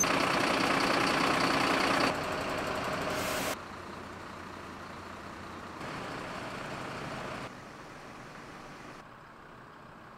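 Steady running noise of idling fire engines and other emergency vehicles, loudest in the first two seconds, then dropping abruptly in level several times and fainter near the end.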